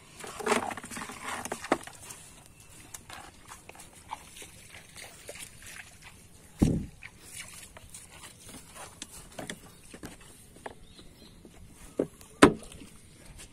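Wet, squelching footsteps and light splashing on waterlogged grass beside a small fibreglass boat, with scattered knocks, a dull thump about halfway and two sharp knocks near the end.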